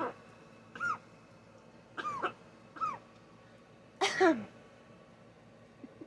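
Blue-and-gold macaw making short coughing sounds, four in a row with pauses between them, the loudest about four seconds in.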